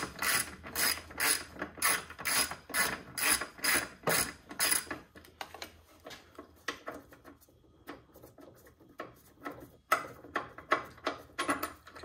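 Socket ratchet clicking as it backs out the 12 mm battery hold-down clamp bolt, in quick even strokes of about three clicks a second. The clicking thins out and goes faint about halfway through, then picks up again near the end.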